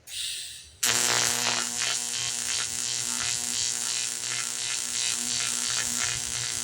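AC TIG welding arc on aluminum: a short hiss, then under a second in the arc strikes abruptly into a steady buzz with crackle.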